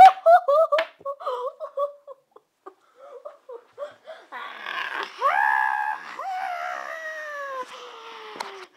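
A child's high voice in play-acted distress: a quick run of short yelps in the first second, then, after a lull, one long wailing cry that slowly falls in pitch.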